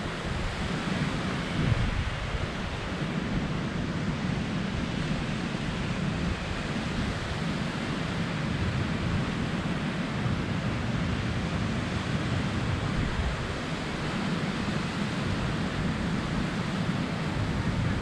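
Ocean surf breaking and washing up onto a sandy beach in a steady, unbroken wash, with wind rumbling on the microphone.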